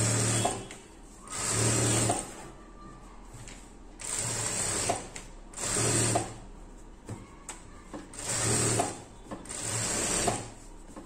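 JACK A4 industrial lockstitch sewing machine stitching in short bursts: about six runs of under a second each, stopping and starting with pauses between, as a seam is sewn right along the fabric edge.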